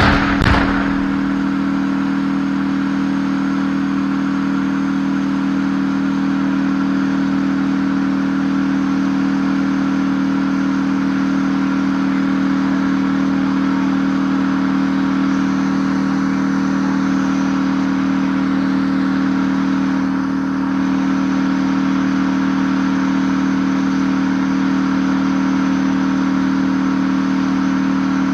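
A tank cannon shot dies away in the first second, then the tank's engine keeps running steadily with a loud hum of two steady notes over a hissing rush.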